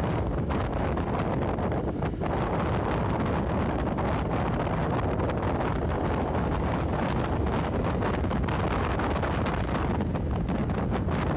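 Steady wind rush buffeting the microphone of a moving motorcycle, with the motorcycle's engine running underneath.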